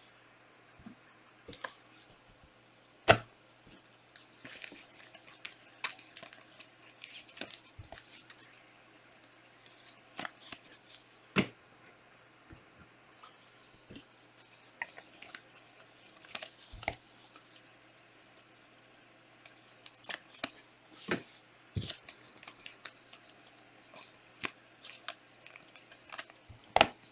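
Trading card packs being opened and handled: scattered rustles and crinkles of pack wrappers and the clicks and slides of cards being sorted, with a few sharper knocks among them.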